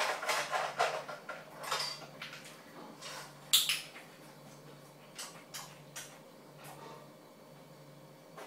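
Metal dog food bowl clattering as it is picked up and handled, with one sharp, ringing clank about three and a half seconds in, then a few light clicks.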